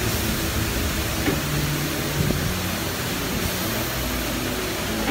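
Hunter wheel balancer spinning a mounted car wheel and tire under its lowered hood guard, giving a steady mechanical run noise. This is a measuring spin to check the wheel's balance after a wheel weight was added.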